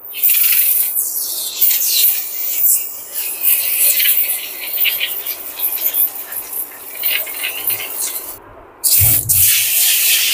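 Aerosol can of foaming kitchen cleaner spraying: an uneven hiss in spurts as the foam is laid onto a chimney grease filter. The hiss stops briefly about two seconds before the end and then starts again.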